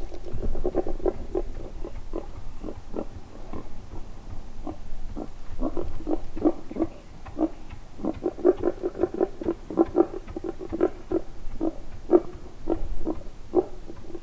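Wild boar grunting: runs of short, low grunts repeated several times a second, with brief pauses between the runs.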